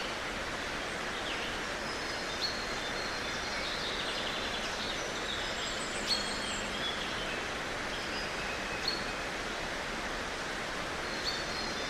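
Steady hiss with short, high bird chirps heard several times over it.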